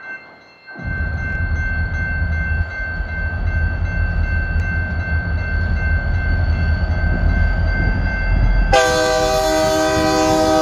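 Approaching diesel locomotive rumbling steadily, then sounding its air horn in one long, loud chord that starts near the end.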